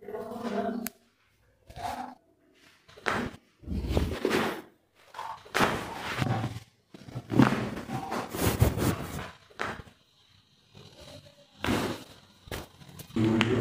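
Thuds and thumps of a chiropractic back manipulation, a series of separate knocks and pushes with short pauses between them.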